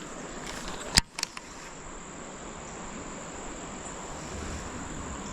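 Insects chirring in a steady high tone over an even outdoor hiss, with a sharp click about a second in and two smaller ticks just after.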